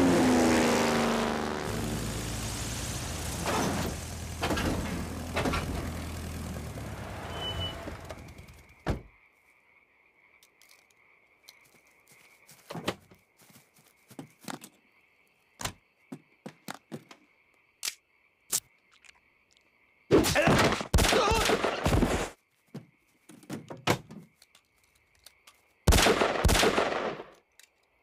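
A loud rumbling, ringing sound that fades out about eight seconds in. After that comes a faint steady high tone with scattered sharp knocks and clicks, and two loud rough bursts of noise, each lasting a couple of seconds.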